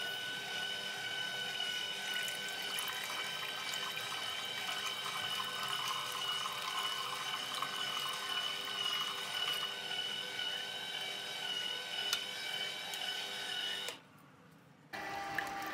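Vertical slow juicer's electric motor running steadily with a high-pitched whine as it presses fruit, juice pouring from the spout. The sound drops out for about a second near the end, then resumes.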